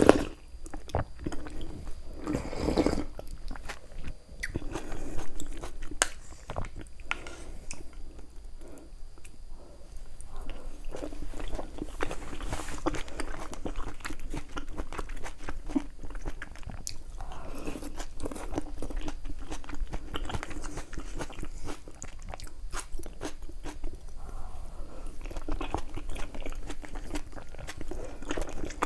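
Close-miked eating sounds: a person biting and chewing food, with many small crisp clicks and crunches throughout.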